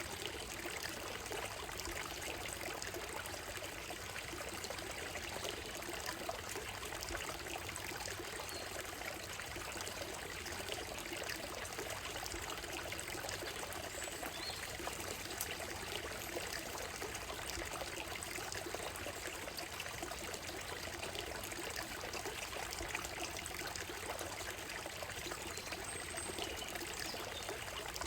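Shallow stream running over a gravel and stone bed: a steady trickling and splashing that does not let up. A few faint short bird calls now and then.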